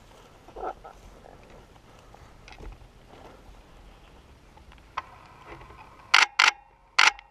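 Camera shutter firing three times close to the microphone, two quick sharp clicks about six seconds in and a third near the end, over faint rustling.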